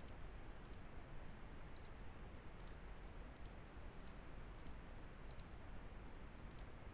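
Faint computer mouse button clicks, each a quick press-and-release pair, coming irregularly about every half second to a second as polygon corners are placed, over a steady low hiss.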